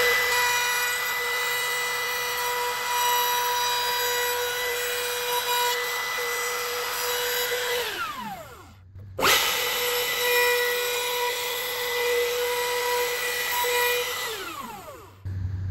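Makita trim router running at full speed with a steady high whine and hiss as it routes a ledge around a pickup hole in the archtop guitar's spruce top. It is switched off and winds down about eight seconds in, starts again a second later, and winds down a second time near the end.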